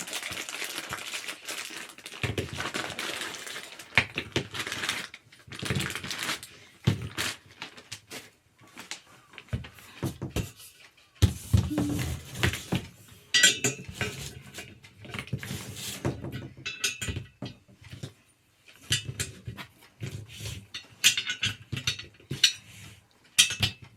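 Gaming chair parts being handled during assembly: irregular knocks, clacks and clinks of hard plastic and metal pieces, such as the casters and base, bumping together, with a few brighter metallic clinks in the second half.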